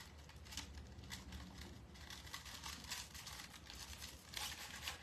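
Deco mesh rustling and crinkling as it is gathered and twisted into pipe-cleaner ties on a wire wreath frame. It is faint, with a louder stretch of rustling near the end.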